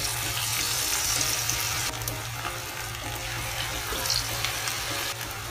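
Cauliflower pakoras deep-frying in hot sunflower oil: a steady hissing sizzle as pieces of battered cauliflower are dropped into the pot.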